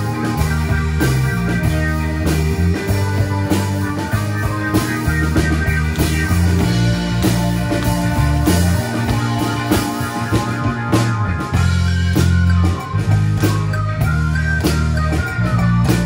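Live synth-pop band playing: a drum kit keeps a steady beat under an electric bass line and sustained synthesizer chords. A wavering higher melody line comes in about eleven seconds in.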